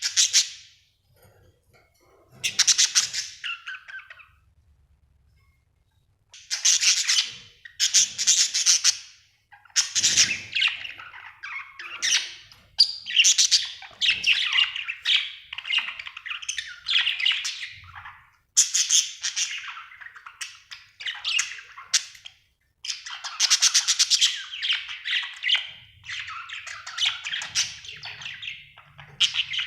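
Budgerigar chirping and chattering in bursts of rapid, buzzy warbles, with short pauses between phrases that become nearly continuous after the first few seconds.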